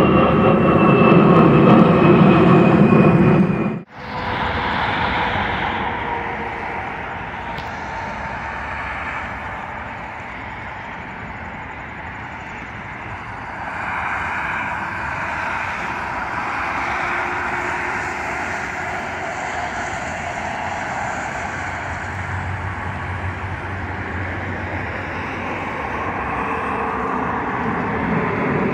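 Jet airliner passing overhead: steady engine roar with a high whine that falls slowly in pitch. The sound cuts off abruptly about four seconds in and gives way to a quieter, more distant jet roar that swells again about halfway through and near the end.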